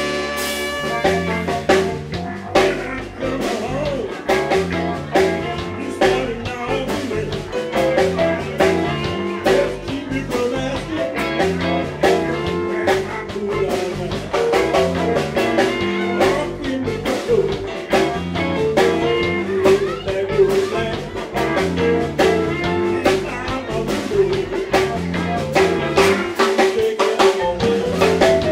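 Live blues band playing a song, with a drum kit keeping a steady beat under guitar.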